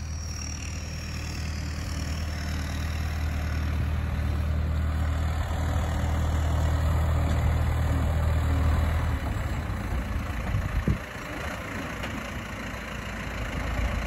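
John Deere utility tractor's diesel engine running under load as its front loader carries a round hay bale, louder for several seconds and then easing off about nine seconds in. A single thump comes about eleven seconds in.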